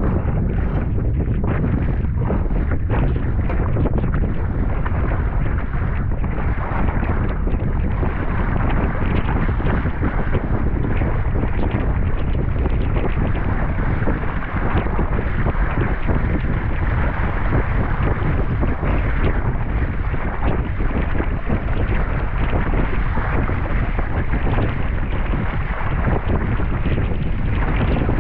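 Strong wind buffeting the microphone of a camera on the bow of a Sunfish sailboat under way, over the rush and slap of choppy water along the hull. A steady, loud noise with no letup.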